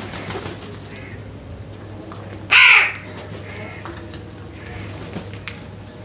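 House crows calling. One loud caw about two and a half seconds in, with fainter calls from other crows in the flock before and after it.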